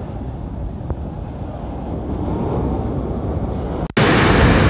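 Surf washing up a sandy beach with wind on the microphone. About four seconds in it cuts abruptly to a louder, brighter hiss of wind and surf.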